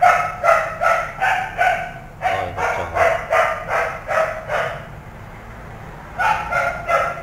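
Dog barking over and over, about three barks a second, stopping for about a second and a half near the end before it starts again.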